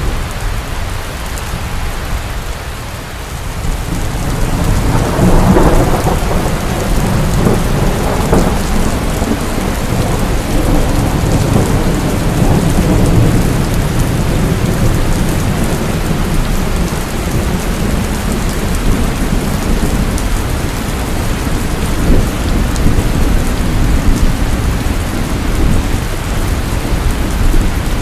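Heavy rain falling steadily, with a thunder rumble that builds about four seconds in, is loudest soon after and rolls on for several more seconds.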